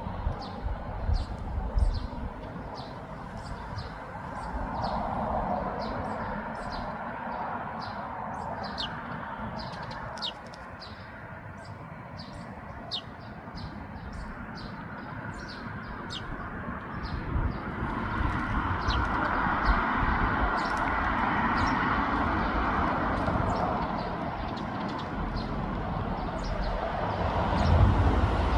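Eurasian tree sparrows chirping: many short, high chirps in quick succession, thinning out after about halfway, over a steady background rumble that grows louder in the second half.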